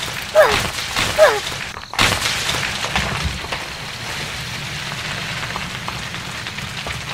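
Two short squeaky cries, each falling in pitch, about a second apart. Then, from about two seconds in, a steady rough noise starts suddenly as a toy tractor shoves rocks across sand.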